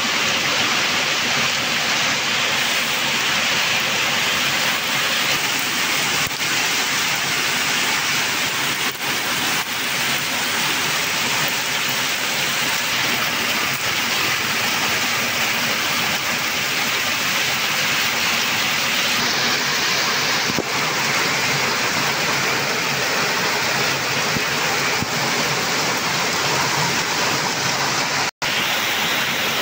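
Heavy downpour of rain: a dense, steady hiss of rain pouring down and pattering on the road and the tricycle's cover, broken for an instant near the end.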